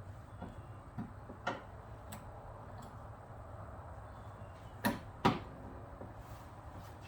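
Short plastic clicks and knocks from a Toyota Sienna's liftgate trim panel being worked back on, its push-in rivets nudged with a pry tool and pressed toward their holes. A few light clicks come first; the two loudest snaps come close together about five seconds in.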